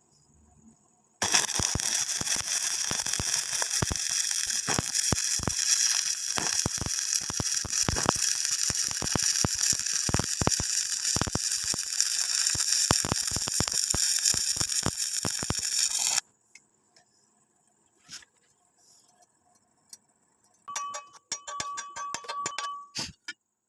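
An electric stick-welding arc crackles and sputters steadily on a vertical weld. It starts about a second in and cuts off suddenly after about fifteen seconds. Near the end there is a brief spell of rapid clicking and rattling.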